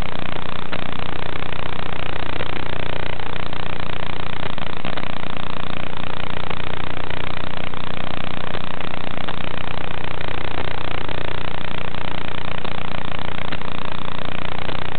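Steady, unchanging hiss with a low electrical hum, the audio channel of an analog FPV video link, with no clear rise and fall of motors.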